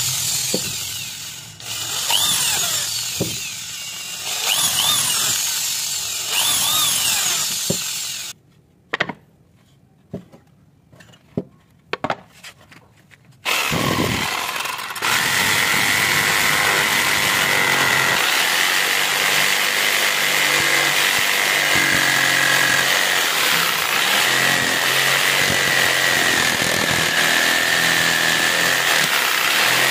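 Electric drill boring into a wood board, its motor whine speeding up and slowing down several times over the first eight seconds. A quiet gap with a few clicks follows. From about halfway on, a Makita 4327M jigsaw runs steadily, cutting the board.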